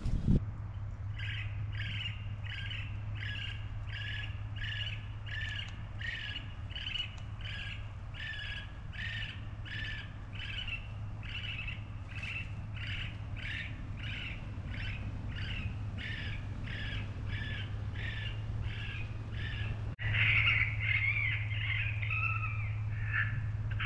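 Lucky Duck Revolt electronic predator caller playing a recorded raccoon call, a squalling call repeated evenly a little under two times a second. About 20 seconds in it changes to a louder, more tangled stretch of calling.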